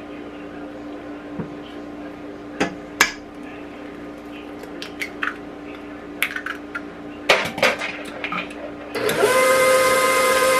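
Spatula scraping and knocking against a stainless steel mixing bowl, and an egg cracked into it, giving a series of sharp clicks and knocks. About nine seconds in, a KitchenAid Professional 5 Plus stand mixer switches on and runs with a steady whine.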